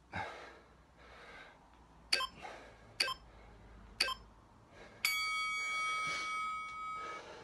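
Workout interval timer counting down: three short pips about a second apart, then a long electronic beep of about two seconds that cuts off sharply, marking the end of the exercise interval.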